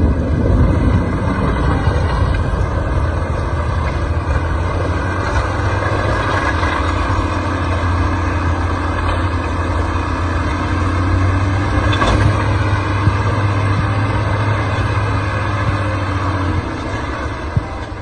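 Heavy snow-clearing machine's engine running steadily with a low drone, which drops away near the end.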